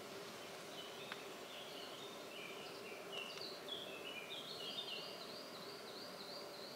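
Faint birdsong: a bird repeating quick arched chirps, with other varied chirps in between, over a steady faint hiss.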